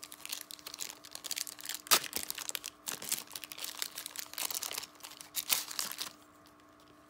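Foil wrapper of a trading-card pack being torn open and crinkled by hand, with one sharp snap about two seconds in. The crinkling stops about six seconds in.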